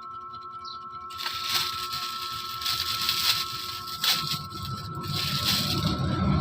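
Plastic packaging crinkling and rustling as clothes are unwrapped, starting about a second in, with several sharp crackles. A faint steady high hum runs underneath.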